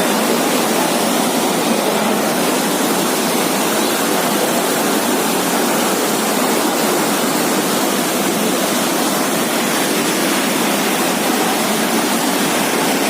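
Waterfall rushing: a loud, steady roar of falling water, unchanging throughout.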